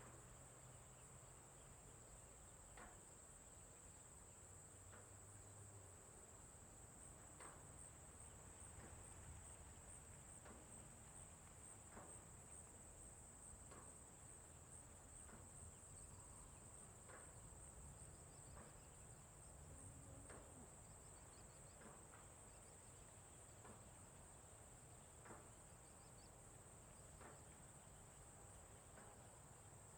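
Faint, continuous high-pitched insect trill, like crickets, with short faint chirps every second or two.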